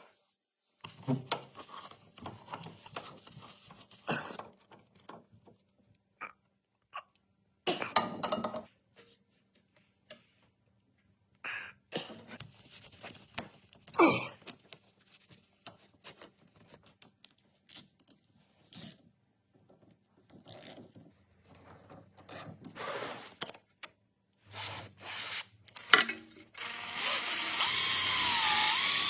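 Hand tools knocking and clinking on metal at irregular moments, then, from about 26 seconds in, a power tool running loud and steady, its pitch wavering, during a repair of a clunking front wheel.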